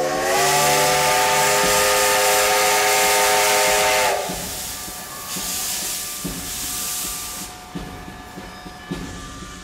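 Steam locomotive whistle blowing one long blast. Its chord of several tones rises slightly as the valve opens, holds steady and cuts off about four seconds in. A hiss of escaping steam runs on for a few seconds after the whistle stops, and music begins near the end.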